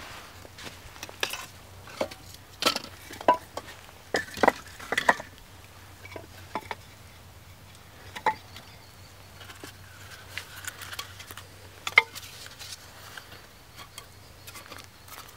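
Dry wooden sticks and small logs being handled on a log shelf, knocking and clattering together in irregular sharp knocks, the loudest about twelve seconds in.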